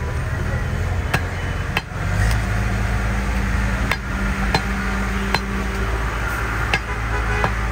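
A heavy butcher's cleaver chopping mutton on a wooden log block: about seven sharp, separate knocks at irregular intervals, over a steady low hum.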